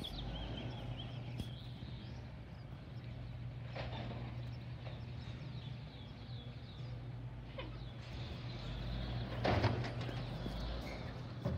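Waste Management garbage truck's engine running steadily down the street, with several clanks and knocks, the loudest about nine and a half seconds in. Small birds chirp.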